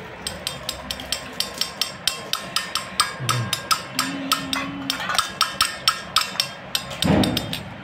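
Steel spoon clinking against a stainless steel bowl as golgappa pani is stirred, about four quick metallic clinks a second. A louder dull noise comes near the end.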